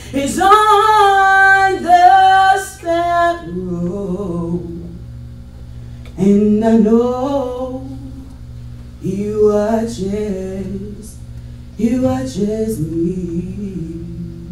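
A woman singing a slow gospel solo in long held phrases, with a second, lower part sounding under several of them. A steady low hum runs underneath.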